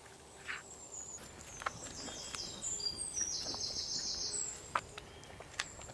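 Birds chirping in short high calls, with a fast trill from about two to four and a half seconds in. A few soft clicks come from a metal spatula stirring thick rice and milk in a clay pot.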